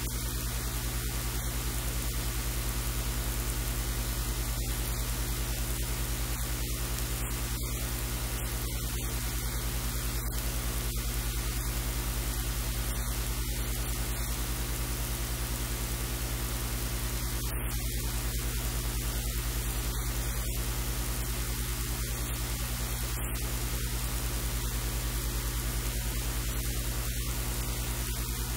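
Steady hiss with a low electrical hum underneath, unchanging throughout; no other sound stands out.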